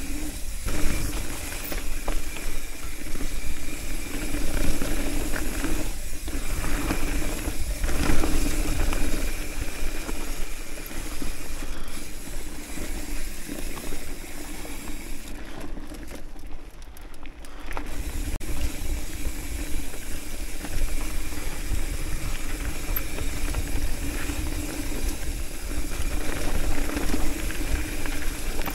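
Hardtail mountain bike descending a dirt and gravel trail: tyres rolling and crunching over loose rock, the bike rattling with scattered clicks, over a steady rush of wind on the microphone. About two thirds through, the sound briefly turns quieter and duller.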